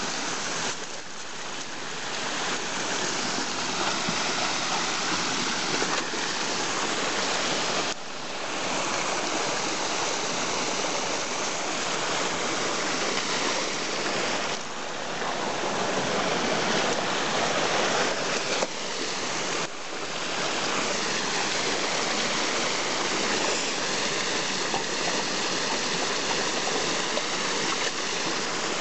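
Water rushing steadily over a small cascade into a stream, a continuous full rush with a few brief dips in loudness.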